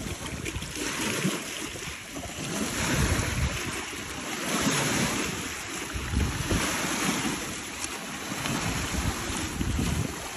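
Small waves of Lake Ohrid washing in over a pebble shore, swelling and easing every couple of seconds, with wind buffeting the microphone.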